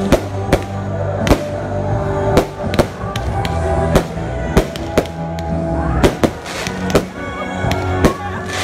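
Consumer fireworks firing: a quick run of sharp bangs from shells bursting overhead, about one or two a second, over loud music.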